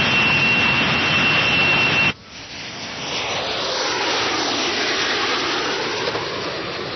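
Fighter jet engines on afterburner: a loud roar with a steady high whine, cut off suddenly about two seconds in. A second jet roar then builds up and holds.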